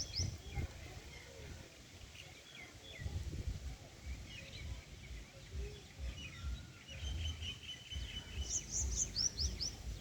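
Small birds chirping: quick runs of short, high, falling notes, the clearest run near the end, over a low rumble of wind or handling noise.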